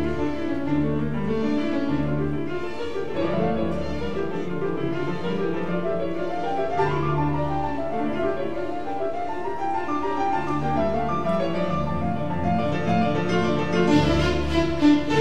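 Instrumental background music in a classical style, with held low notes under a moving melody.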